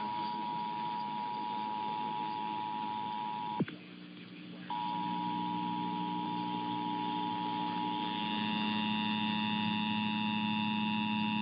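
Emergency Alert System two-tone attention signal: a steady dual tone heard over a broadcast receiver. It cuts out with a click about three and a half seconds in and comes back about a second later over a low hum, and a further set of higher steady tones joins about two thirds of the way through.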